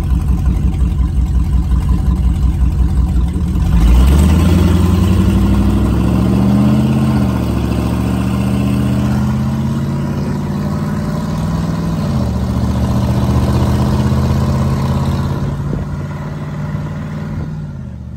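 Box truck engine running with its catalytic converters cut out, so the exhaust exits straight from the severed pipe. It starts with a loud pulsing idle, revs up about four seconds in, and then holds a higher pitch that rises and drops back twice before easing off near the end.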